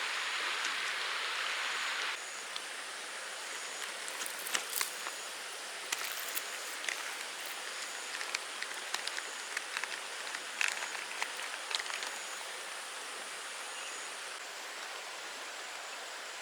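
Steady rain falling, with scattered sharp taps of drops through the middle; the hiss drops abruptly about two seconds in.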